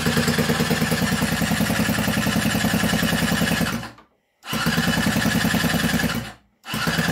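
Two-stroke scooter engine cranked on its electric starter in three bursts, the first about four seconds long and the next two shorter, with a fast even pulsing; it does not catch, even with starter spray in the intake.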